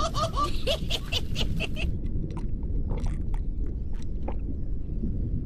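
Rhythmic laughter that trails off about half a second in. A steady low rumble then continues, with scattered faint clicks.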